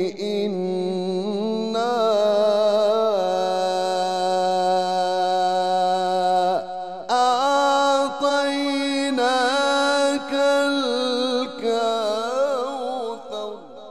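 A man's voice reciting the Quran in the melodic mujawwad style: long, ornamented held notes that waver and slide in pitch. It comes in two long phrases with a short break about halfway through, and fades away at the end.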